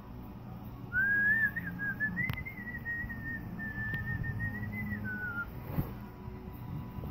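A person whistling one long, slightly wavering note, rising at the start and dropping just before it stops after about four and a half seconds.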